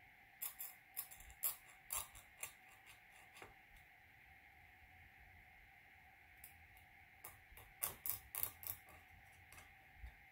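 Gracey 1/2 curette's metal blade scraping in short working strokes against the plastic teeth of a dental typodont, heard as faint quick clicks. They come in two runs, one in the first few seconds and one after about six seconds, over a faint steady hum.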